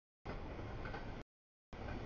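Steady rumble of a CSX intermodal freight train rolling through a grade crossing, cars of containers and trailers passing. The sound comes in chunks of about a second, broken by sudden complete dropouts in the audio.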